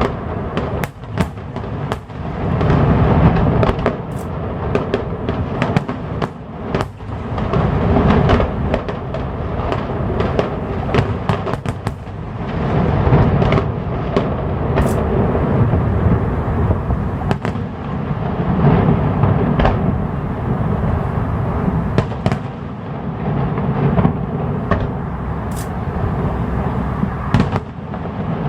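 Fireworks display: shells bursting in a continuous barrage of booms, with frequent sharp cracks on top.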